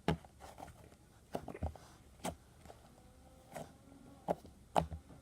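Butter-cloud slime being squished and poked by hand: soft irregular clicks and pops, about a dozen in a few seconds.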